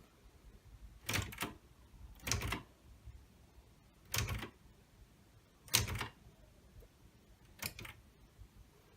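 Typewriter keys struck one at a time: five separate clacks, each a short cluster of clicks, spaced one to two seconds apart, as a password is typed in.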